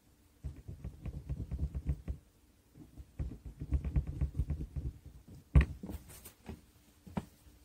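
A small furry pet chewing food right next to the microphone: two runs of rapid crunching clicks. About five and a half seconds in there is one sharp knock, then a few scattered clicks.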